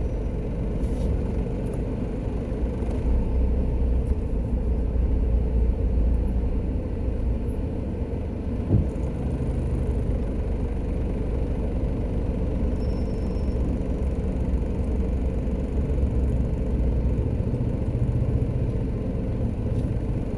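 Steady low rumble of a car heard from inside, with one brief thump about nine seconds in.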